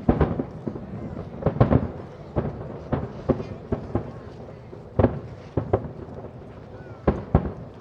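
Aerial firework shells bursting, about fifteen sharp bangs at irregular intervals, some in quick clusters of two or three, each trailed by a short rumbling echo.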